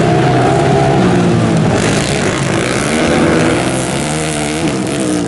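Dirt-track racing motorcycle engines running hard, their pitch rising and falling repeatedly as the riders open and close the throttle.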